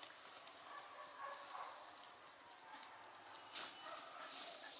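Steady, high-pitched chorus of forest insects, droning without a break.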